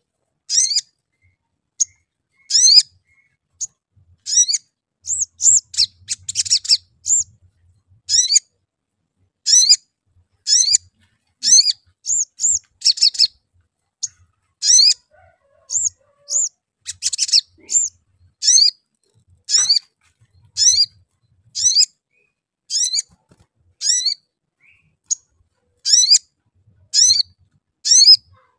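Male olive-backed sunbird calling: a long series of short, high, sharp chirps about one a second, each a quick sweeping note. A couple of faster chattering runs come about six and seventeen seconds in.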